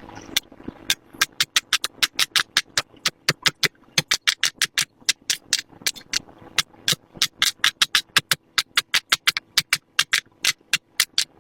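Silicone pop-it fidget toy bubbles being pressed in quick succession: a fast, uneven run of sharp pops, several a second.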